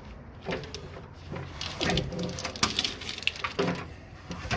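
Cut wires being pulled through and out of the vehicle's wiring run: irregular rustling and scraping with scattered clicks.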